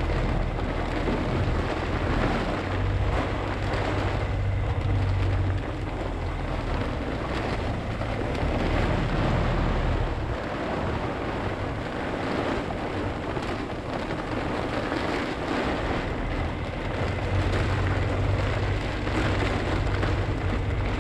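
Storm wind and heavy rain of a microburst blowing across a sailboat's cockpit, a dense steady rush. A low rumble swells a few seconds in and again near the end.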